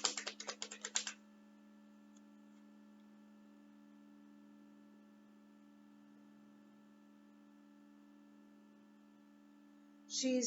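A quick flurry of sharp clicks in the first second, then a steady low electrical hum with several fixed tones.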